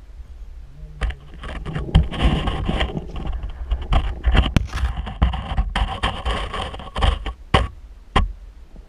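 Underwater sound through a GoPro's waterproof housing: irregular knocks, clicks and scraping as the camera is handled along the sandy bottom and rock ledge, over a constant low rumble.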